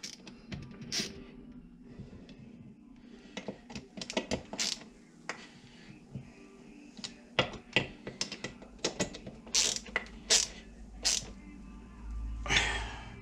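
Hand driver turning T27 Torx bolts into chainsaw crankcase halves: irregular small metallic clicks and ticks of the tool working in the bolt heads, with a longer rustling scrape near the end.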